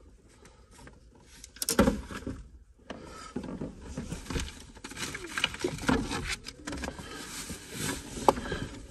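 Rummaging inside a car: hands and a cotton sleeve rustling and scraping against the seat and interior trim, close to the microphone. A sharp knock comes about two seconds in, and the rustling with scattered clicks runs on from about three seconds in.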